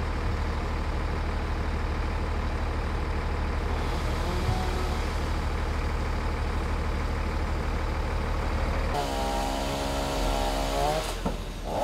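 An engine idling steadily at a constant pitch. A steadier pitched engine tone stands out for about two seconds near the end, and revving starts just before the end.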